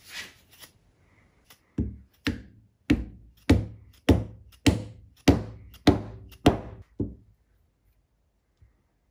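Dead blow mallet striking a wooden wedge into the top of a new hickory handle in the eye of a Norlund Hudson Bay hatchet head, to lock the head on. About ten thuds at a steady pace, a bit under two a second, each with a short ring, then they stop.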